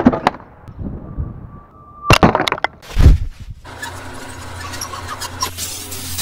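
A wooden torsion ballista firing with a sharp crack, followed about two seconds later by a clatter of sharp impacts and a deep heavy thud. From a little past halfway, a steady shimmering swish with small glittering ticks plays, a logo sound effect.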